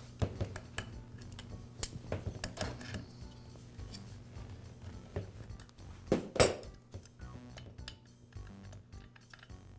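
Scattered metallic clicks and clinks as adjustable pliers grip and turn a trimmer's starter pulley cup off the engine crankshaft; the loudest clink comes a little after six seconds in. Faint background music runs underneath.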